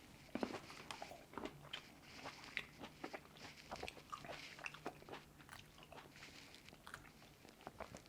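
Someone biting into and chewing Shine Muscat grapes close to the microphone: a quiet run of many short, irregular clicks and smacks.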